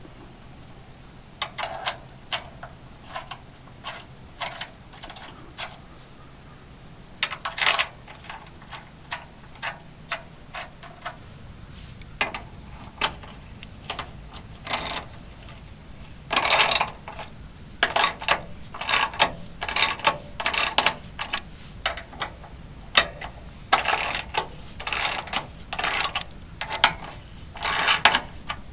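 Ratchet wrench clicking in short irregular runs as bolts on a sawmill bed rail are worked loose, with the runs coming thicker in the second half.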